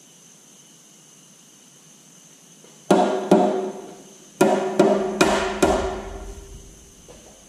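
Six sharp metal-on-metal strikes in three quick pairs, each ringing briefly before fading: blows tapping a Detroit Diesel 3-53 flywheel housing into place on the engine block.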